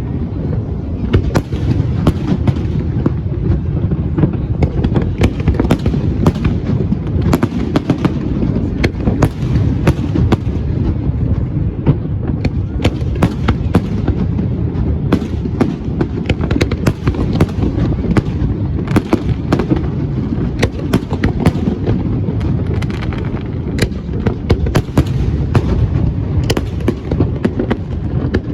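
Aerial fireworks bursting in rapid, overlapping succession: many sharp bangs and cracks, several a second, over a continuous low booming wash.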